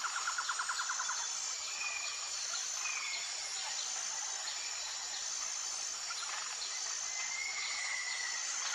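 Insects and birds: a steady high trill that keeps breaking off, a fast pulsing trill in the first second, and a few short chirps.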